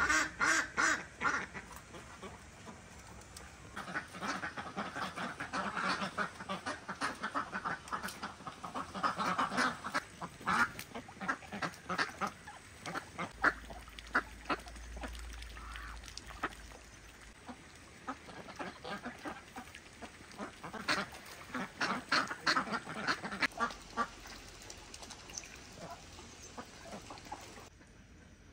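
A flock of domestic ducks quacking in rapid runs of short calls, in three bouts with quieter gaps between them.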